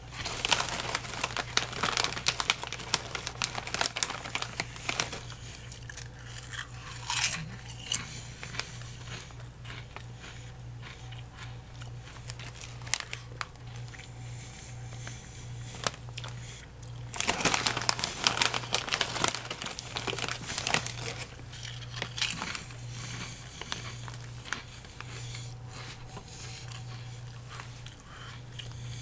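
Crunching and chewing of a ridged (ripple) potato chip, mixed with the crinkle of the foil chip bag being handled. The crackling comes in bursts, loudest about a second in, around seven seconds, and again from about seventeen to twenty-one seconds, over a steady low hum.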